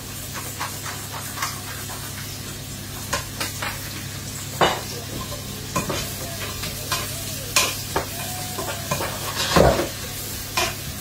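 Onions sizzling in a frying pan as a spoon stirs them, with scattered clicks and scrapes of the spoon against the pan and a heavier knock near the end. A steady low hum runs underneath.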